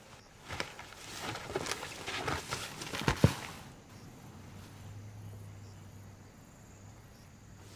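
An African bush elephant bull thrashing a leafy branch with its trunk and tusks: about three seconds of rustling and crackling twigs, ending in one sharp crack, during an agitated dominance display. A faint low steady hum follows.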